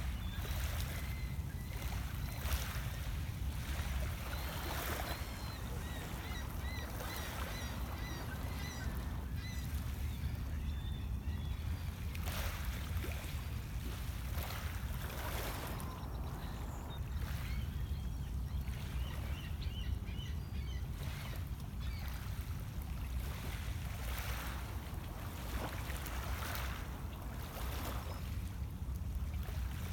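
Small waves lapping on a pebble lakeshore in irregular washes every second or two, over a steady low rumble. Faint high bird chirps come in two short series, a few seconds in and again about two-thirds of the way through.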